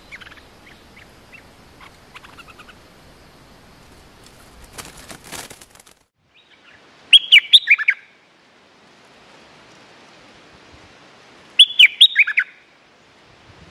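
Stripe-throated bulbul singing two loud, short phrases of quick notes that drop in pitch, about four and a half seconds apart, with faint chirps earlier and a brief rustle before the first phrase.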